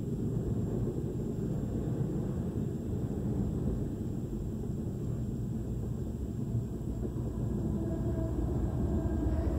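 CN freight train rolling past a level crossing, heard from inside a car: a steady low rumble of the wagons on the rails. Near the end a locomotive comes by, adding a faint steady hum.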